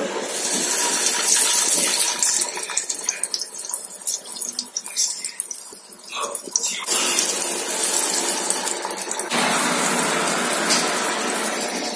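Marinated chicken drumsticks sizzling as they are laid into hot oil for shallow frying. The sizzle is strong at first, dies down in the middle, then swells again twice, about seven and nine seconds in, as more pieces go into the pan.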